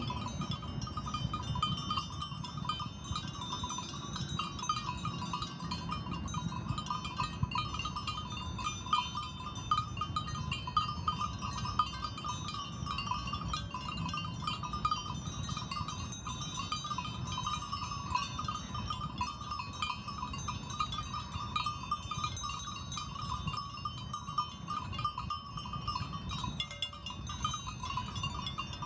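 Small bells on a grazing flock of sheep tinkling continuously and unevenly, many overlapping light rings, over a steady low rumble.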